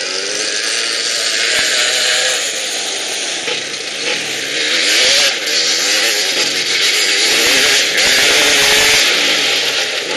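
Quad fitted with a Suzuki RM250 two-stroke single-cylinder motocross engine being ridden hard, its raspy exhaust rising and falling in pitch with the throttle. It gets louder over the first couple of seconds as it comes near.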